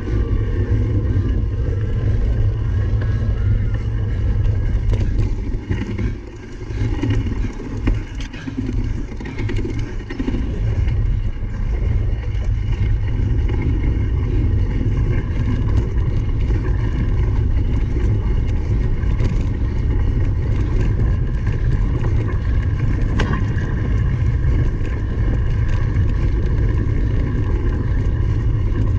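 Wind rumbling on the microphone while a cyclocross bike is ridden at race pace, easing briefly about six seconds in and picking up again around ten seconds.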